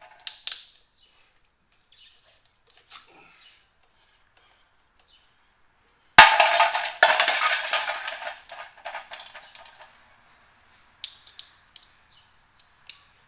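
A metal lug nut cover dropped onto the concrete floor about six seconds in, clattering and ringing as it spins and settles over about three seconds. Light metal clicks follow near the end as the next cover is worked loose from the wheel.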